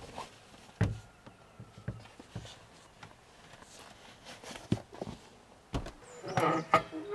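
Scattered light footsteps and knocks, with a louder, briefly pitched burst of sound near the end.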